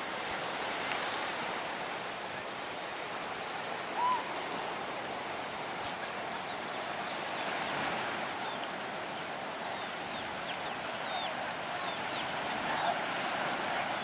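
Steady wash of ocean surf, with a few faint bird chirps and one short, louder chirp about four seconds in.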